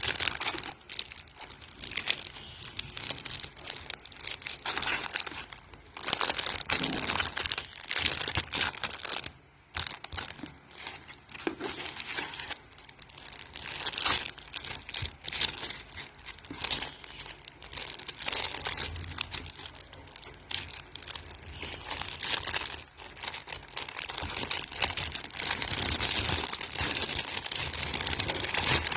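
Packaging crinkling and tearing in irregular bursts with short pauses, as a parcel is unwrapped by hand.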